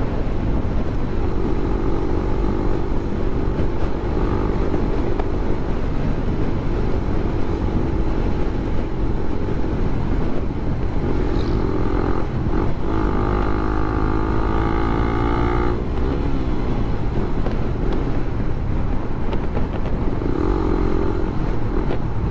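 Suzuki Raider 150 Fi's single-cylinder engine running at road speed under a steady rush of wind and road noise. The engine note grows stronger for a few seconds past the middle.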